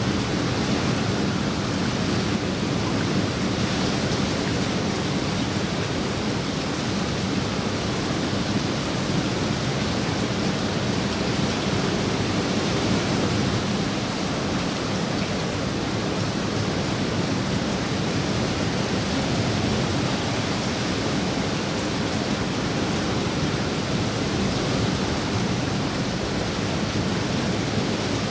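Steady rain falling on the water of a swimming pool, an even hiss that holds without a break.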